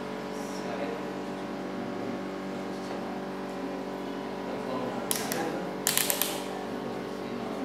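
Analog multimeter's rotary range switch clicking as it is turned: a single click about five seconds in, then a quick run of clicks a second later.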